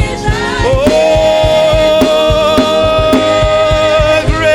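Gospel worship song with a band: a singer holds one long "oh" over sustained keyboard chords and a steady drum beat.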